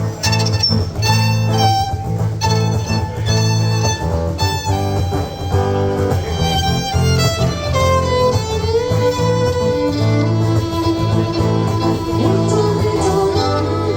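Lothar Semmlinger wooden violin played through a Schertler DYN-V pickup, carrying a melody with sliding pitch changes over a backing track with a steady bass line.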